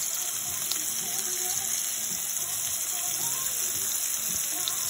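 Salmon fillets frying in a hot pan of truffle oil: a steady, even sizzle.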